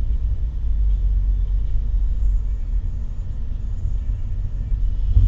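Steady low rumble of a car driving at road speed, heard from inside the cabin: road and engine noise, with a brief thump near the end.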